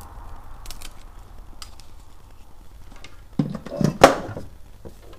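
Handling noise while a power adapter's cable is plugged into a plastic base station: a few light clicks, then a burst of knocks and rustling about three and a half seconds in. The loudest knock comes about four seconds in.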